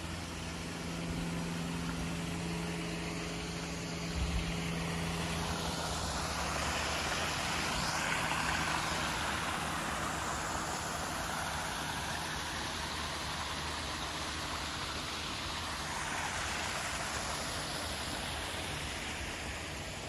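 Small garden waterfall and stream rushing, a steady hiss that swells midway. A low steady hum sits under it for the first few seconds, and a brief low thump comes about four seconds in.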